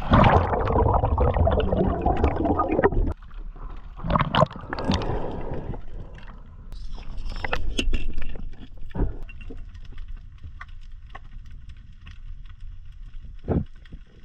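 Water splashing and sloshing at the surface, then a sudden change about three seconds in to muffled underwater sound as the microphone goes under. Bursts of bubbling follow, with scattered sharp clicks.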